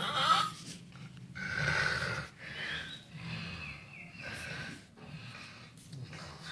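A person snoring in sleep: a run of irregular snorting breaths about a second apart, some with a whistling pitch that slides downward.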